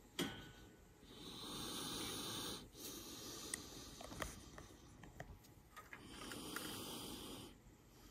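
A person breathing close to the microphone: two slow breaths, with a sharp click just after the start and a few light ticks between the breaths.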